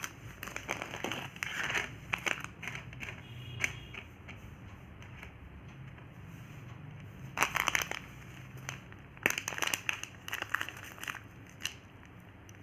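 Plastic wrapper of a Gems chocolate packet crinkling and crackling as it is handled and opened, in irregular bursts.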